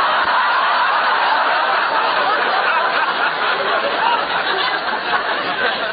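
Studio audience laughing loudly and without a break after a punchline, easing off slightly near the end.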